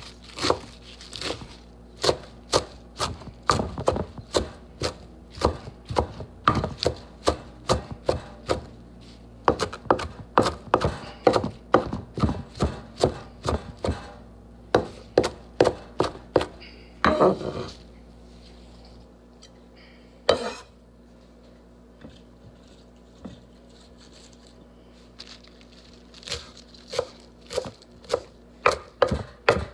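Chef's knife chopping fresh spinach on a wooden cutting board, sharp knocks at about two to three a second. The chopping stops for several seconds about halfway through, with a short rustle and a single knock, then starts again near the end.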